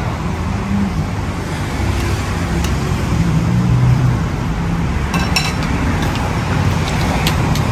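Steady low background rumble, with a few light metal clinks of a ladle against the steel stockpot and a bowl, about three seconds in and again near the end.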